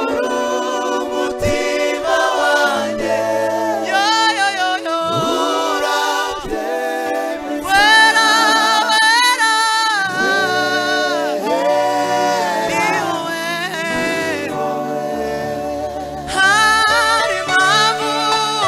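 Live gospel worship singing: a male lead voice with long gliding, held phrases and other male voices singing along in harmony, over steady low held notes.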